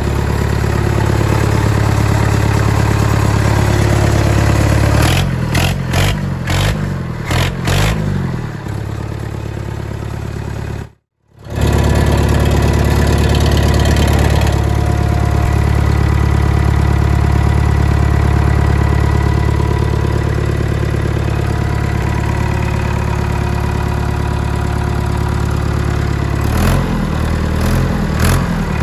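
Backhoe's Nuffield tractor engine running steadily, with a series of quick throttle blips about five to eight seconds in and again near the end. The sound breaks off into silence for a moment about eleven seconds in.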